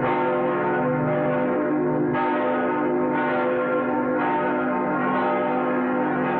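The 1936 Olympic bell tolling, struck about once a second, each stroke ringing on under the next, heard through an old, dull-toned film soundtrack.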